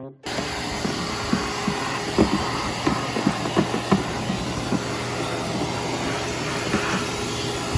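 Vacuum cleaner running steadily, a loud hiss over a low hum, cutting in suddenly. Its nozzle knocks against the hard plastic interior of a ride-on toy car several times in the first half.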